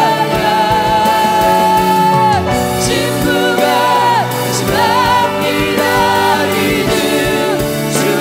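Live Korean worship song: voices singing long held notes with vibrato over a band with a steady drum beat, the crowd singing along.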